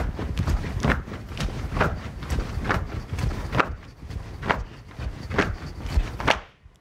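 Feet landing on the floor in a steady set of jumping jacks: a rhythmic thud about once a second over a low rumble of movement. The thuds stop shortly before the end.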